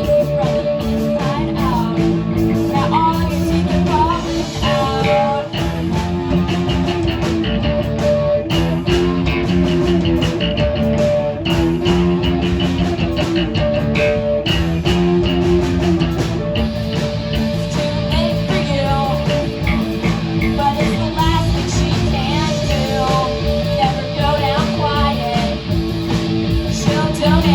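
Rock band playing loud and steady, with guitar and singing.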